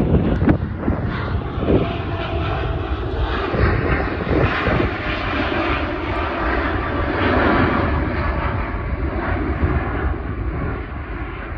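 Jet airliner climbing out just after takeoff: its engines at takeoff power make a steady, loud rushing noise that fades a little near the end.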